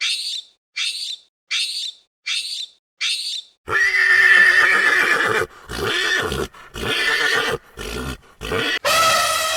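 Five short high bird chirps, evenly spaced, then, after about three and a half seconds, a horse neighing loudly in several wavering bouts, the last one held and falling off at the end.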